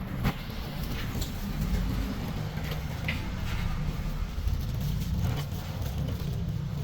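A steady low mechanical rumble with a few short, sharp clicks and knocks, the loudest just after the start.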